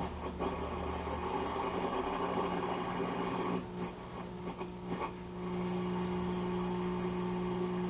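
Hallicrafters S-120 shortwave receiver's speaker giving a steady hum over static with no station coming in, with a few crackles in the middle. The hum is the sign of old filter capacitors that need changing.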